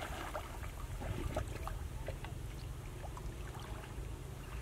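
Light trickling and small splashes of muddy water around people wading chest-deep, over a steady low rumble.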